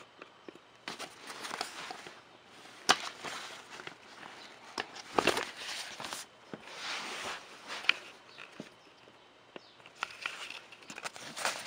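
Lowepro Classified 200 AW fabric camera bag being handled and its front flap opened: irregular rustling and scuffing of the fabric, with a few sharp knocks.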